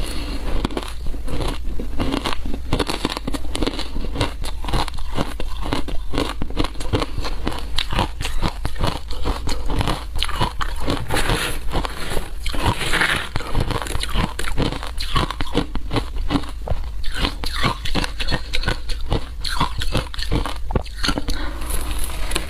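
Close-miked crunching of frozen shaved ice being bitten and chewed, a dense run of irregular crunches. About halfway through, a metal spoon scrapes and digs into the ice in the tray.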